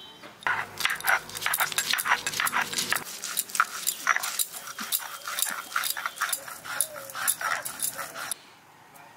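Garlic being ground on a sil-nora, a stone grinder worked over a textured stone slab: a fast, uneven run of rough grinding and scraping strokes, several a second, that stops shortly before the end.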